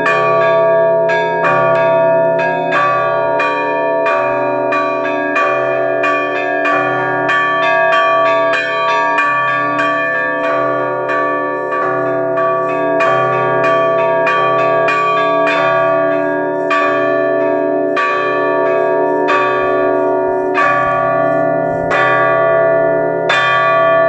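Russian trezvon on a set of church bells: the large 1897 V. Orlov bell, cracked along two-thirds of its height and sawn through along the crack, is struck steadily by its clapper under a quick, even pattern of strikes on smaller bells. The strikes overlap into continuous ringing.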